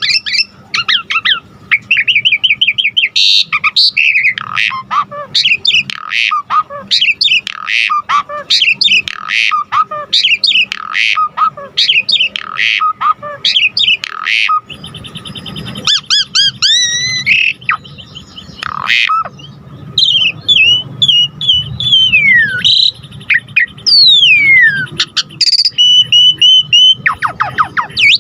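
Javan pied starling (jalak suren) singing without a break: a varied, rapid stream of chirps, whistles and harsh squawky notes. The song is full of mimicked 'isian' phrases, and there are several long falling whistles in its second half.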